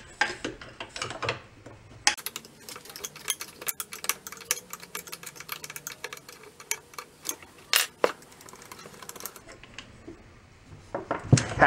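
Rapid metallic clicking of a ratcheting wrench turning out a small brass fitting on an old outboard motor's lower unit. It runs for several seconds, and a louder knock comes near the end.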